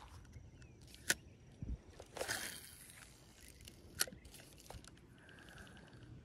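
Handling noise from a spinning rod and reel: scattered sharp clicks, one about a second in and another about four seconds in, a brief rustle between them, and a short run of light fast ticks near the end.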